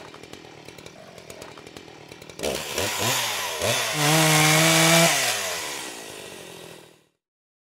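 Chainsaw idling with a quiet ticking beat, then blipped twice about two and a half seconds in, held at full throttle at a steady high pitch for about a second, and let fall back, the engine note dropping as it fades out.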